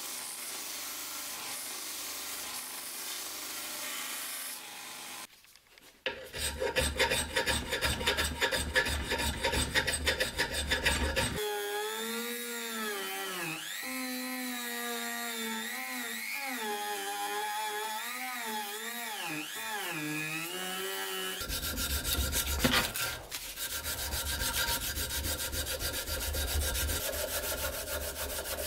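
A hand file scraping in quick, repeated strokes, in several short cut-together stretches. In the middle a pitched whine wavers up and down for about ten seconds before the scraping strokes return.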